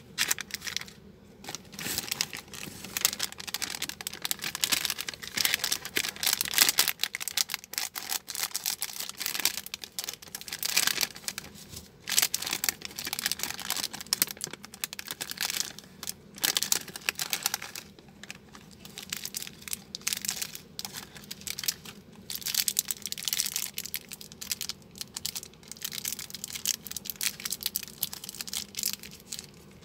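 Plastic candy wrappers crinkling as they are handled and pulled open by hand, with many irregular crackles.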